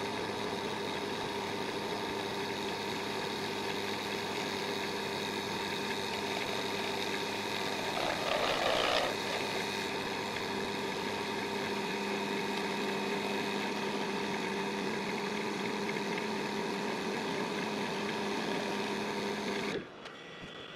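Wood lathe motor running at a steady speed with a constant whine, as a turning tool cuts the spinning crayon-wax bowl. The cutting gets louder and rougher about eight seconds in. The lathe switches off near the end.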